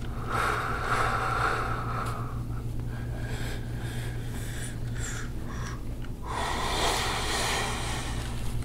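A man breathing out hard: two long, noisy exhales, one starting just after the beginning and another about six seconds in. He is breathing through the discomfort of deep pressure worked into his back.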